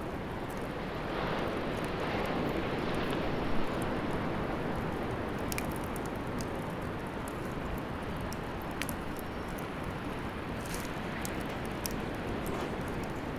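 Bonfire burning in a fire stand: a steady rushing of flames with scattered crackles and pops. It swells a second or so in, with one sharp pop a few seconds in.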